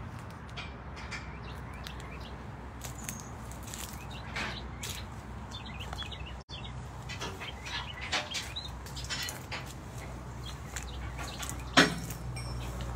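Steady low hum of the car-carrier truck's idling diesel engine, with scattered short high chirps and clicks over it and a single sharp knock near the end.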